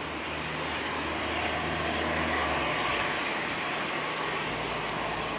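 Boeing 737-800's CFM56-7B jet engines running on the runway: a steady rushing noise, strongest in the upper middle, with a low hum underneath that drops out about halfway through.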